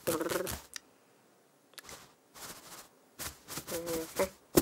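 A cartoon cat's sounds, voiced by a person: a short pitched mew-like sound at the start, then a pause with a faint click. From about three seconds in come a few more short vocal noises, then a sharp click near the end.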